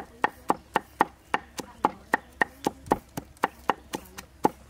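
Steel cleaver chopping garlic on a round wooden chopping block: quick, evenly spaced chops, about four a second.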